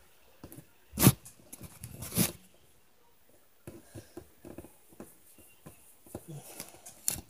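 Irregular knocks, clicks and rustling: two louder knocks about one and two seconds in, then a run of smaller clicks near the end.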